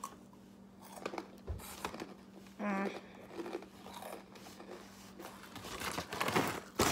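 Brown paper takeout bag being handled, giving scattered crinkling and rustling that gets busier near the end, with a short hum from a voice about two and a half seconds in.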